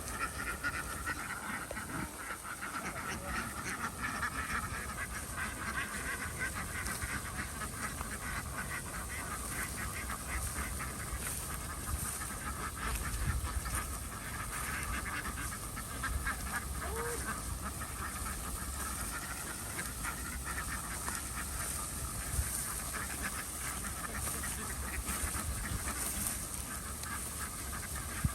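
A flock of farm ducks quacking continuously, many short calls overlapping into a steady chatter.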